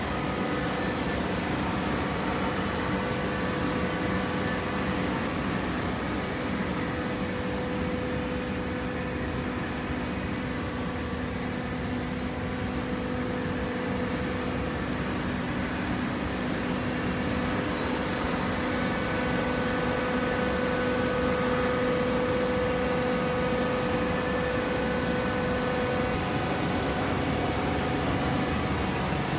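Automatic horizontal baling machinery running: a steady machine hum with a few steady whining tones. It dips a little in the middle and is a little louder in the second half.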